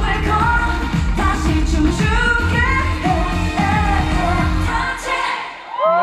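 Pop song sung live by a female vocalist over a backing track with a heavy bass beat; the music stops about five seconds in.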